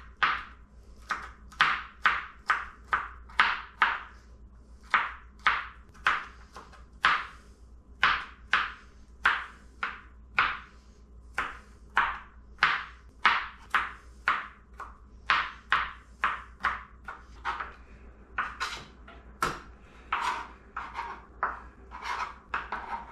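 Small kitchen knife chopping garlic on a plastic cutting board: a steady run of sharp knocks about two a second, quicker and lighter over the last few seconds.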